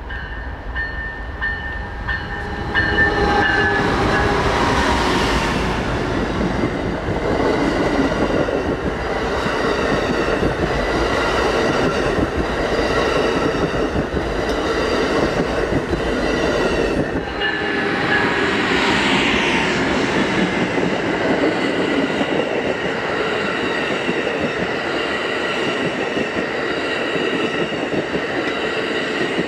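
Amtrak passenger train passing close by: the Siemens ALC-42 Charger diesel-electric locomotive comes up and goes by, getting louder about three seconds in, then a long line of Superliner bilevel cars rolls past with steady wheel-on-rail noise. About seventeen seconds in, the deep rumble drops away while the car wheels keep running by.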